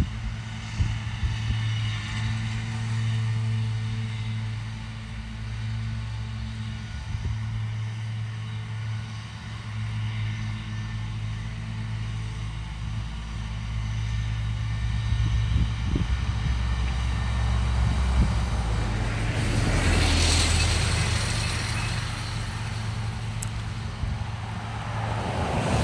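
Claas tractor's diesel engine running steadily under load while pulling a trailed mower through grass: a continuous low drone. About twenty seconds in, a rushing noise swells up and fades again.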